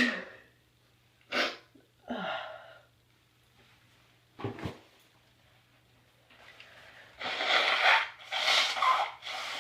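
Sneezing: short, separate sneezes about one and a half, two and four and a half seconds in, then a longer, louder run of sounds near the end.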